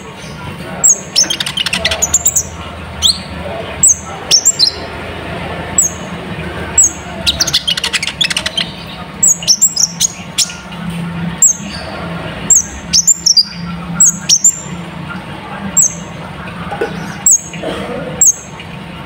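Kolibri ninja sunbird singing hard: sharp, high, falling chips about once a second, broken twice by a fast rattling trill, over a low steady hum.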